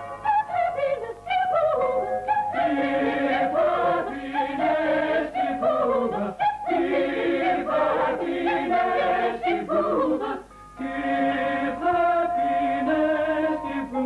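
A choir singing a commercial jingle over music, with a short break about ten and a half seconds in.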